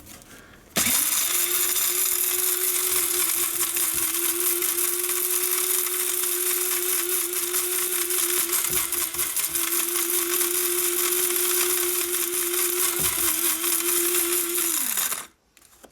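Electric blade coffee grinder running, grinding dried aspen bark into powder: the motor starts about a second in and runs steadily with a hum and a hiss from the grinding, briefly dips near the middle, and winds down with a falling pitch near the end.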